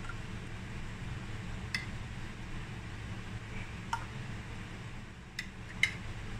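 A metal spoon clinking against glass bowls and a plastic lolly mould while ladling fruit mixture: four light clinks, the loudest near the end, over a steady low background hum.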